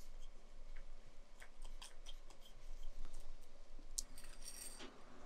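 Light clicks and small scrapes of the plastic and metal parts of a disassembled LED projector headlight being handled, with a quick cluster of sharper clicks about four seconds in.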